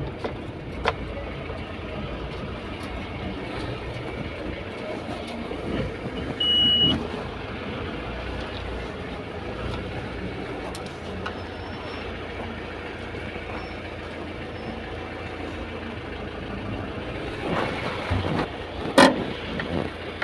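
Mahindra Bolero pickup truck's engine running at low speed, heard from inside the cab. A short high beep comes about six and a half seconds in, and a sharp knock near the end.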